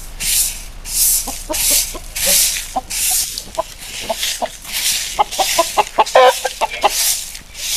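Broom sweeping bare dirt ground in steady scratchy strokes, about three every two seconds, with a chicken clucking in short notes between them, in a quick run about two-thirds of the way through.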